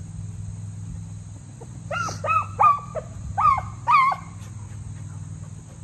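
Beagles yelping and barking excitedly: a quick run of five or six short, high yelps between about two and four seconds in.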